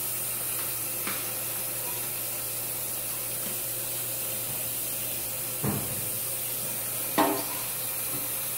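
Fry bread dough frying in hot grease in a skillet, a steady sizzle, with three short knocks, the loudest about seven seconds in.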